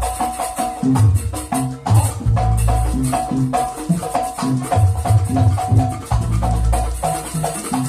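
Live gamelan-style percussion music from a jaranan troupe's ensemble: fast runs of short, repeated struck notes over drums and deep, sustained low tones.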